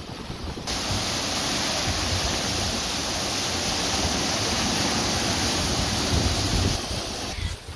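Rushing, hissing white water of a sailing catamaran's wake churning behind the stern in rough, windblown seas, with a low rumble. It comes in suddenly about a second in, stays loud and steady, and drops off near the end.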